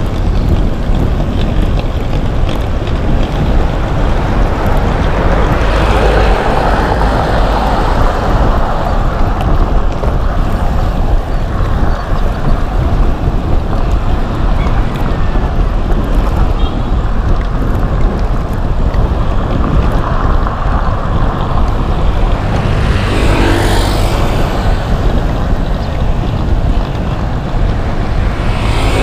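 Steady wind buffeting on the microphone of a camera carried on a moving road bicycle, with a brief louder swell near the end.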